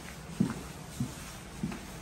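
Footsteps on a hardwood floor: three dull steps a little over half a second apart.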